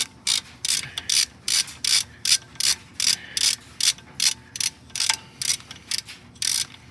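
Hand socket ratchet clicking in quick, even strokes, about three a second, as a 10 mm bracket bolt is being loosened.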